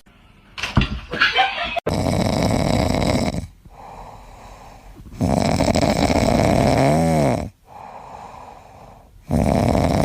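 A pet snoring, with three loud snores about three and a half seconds apart and quieter breaths between them.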